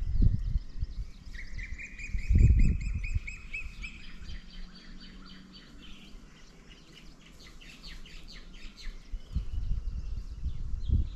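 Birds chirping and calling: a fast run of repeated high notes about a second and a half in, then a spell of short chirps. Low dull thumps come at the start, a couple of seconds in and again near the end.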